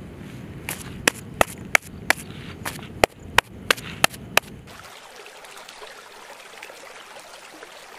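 About a dozen sharp, irregular slaps and taps over the first four and a half seconds, from a hand patting and working wet cow dung on a concrete slab. Then a steady rush of water pouring over a weir.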